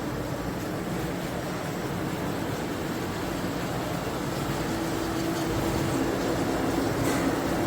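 Steady hum of machinery, with a faint held tone that grows a little stronger in the second half.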